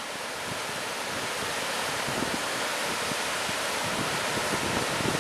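Ocean surf breaking and washing toward the beach: a steady rushing hiss of waves that slowly grows louder.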